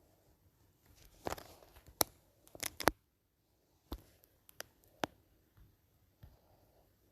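A handful of sharp clicks and taps, spaced irregularly, with a short rustle about a second in and a quick cluster of clicks around the middle.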